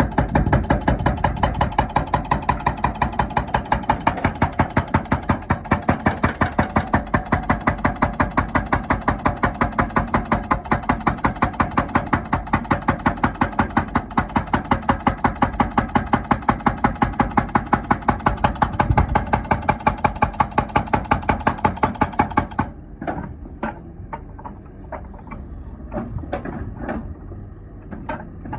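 Hydraulic rock breaker on an excavator hammering in a fast, steady rhythm of several blows a second. Near the end it stops suddenly, leaving scattered clanks and knocks.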